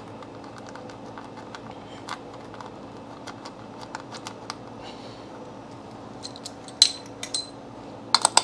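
Scattered small metal clicks and clinks of a 10mm bolt and hand tools as the bolt is put back into the ignition coil, with a few louder, briefly ringing metallic clicks near the end.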